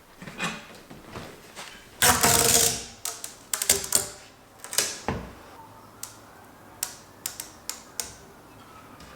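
Mechanical clicks and knocks of metal bicycle parts and tools being handled, with a louder scraping rasp about two seconds in.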